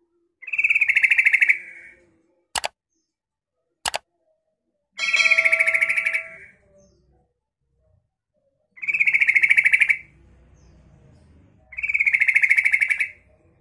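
Female yellow-vented bulbul giving four rapid rattling calls, each about a second long, a few seconds apart: the female's call that keepers play to draw out males. Two sharp clicks come between the first and second calls.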